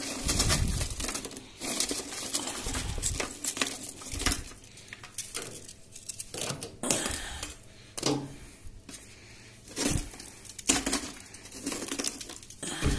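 Lumps of coal being pushed by hand into a solid-fuel boiler's firebox: irregular clinks, scrapes and knocks of coal against coal and metal, with a few heavier thumps.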